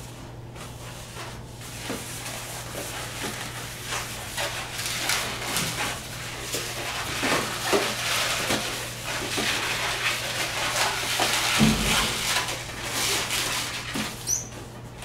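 Latex modelling balloons (260s) being twisted and handled by hand: a run of rubbing, creaking and squeaking latex that grows busier toward the middle, over a steady low hum.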